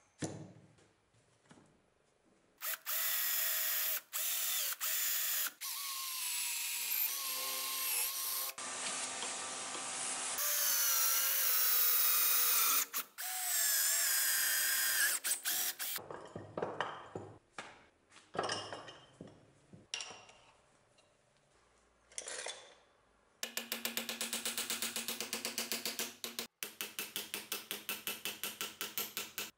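Electric drill boring down through a wooden handle to drill out its metal rivets, the motor's pitch rising and falling as the bit bites. Then a few knocks and scrapes, and near the end a fast, even run of clicks lasting several seconds.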